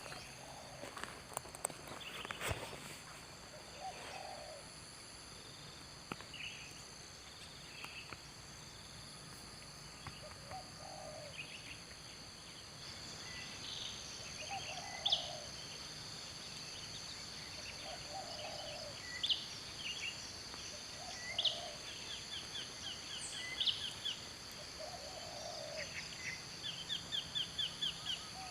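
Wild outdoor ambience with birds calling: a short low call repeats every two to three seconds, over a steady high-pitched hum. Chirps and fast chattering trills join in over the second half, and there are a few clicks in the first seconds.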